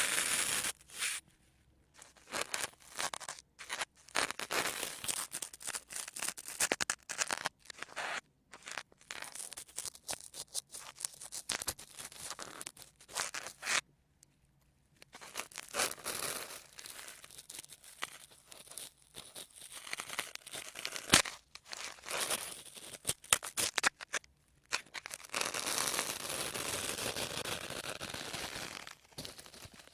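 Sponges handled close to the microphone: squeezed, scrunched and rubbed in a run of short, crackling, rustling strokes. There are brief pauses about a second in and again near the middle, and a longer continuous stretch of scrunching near the end.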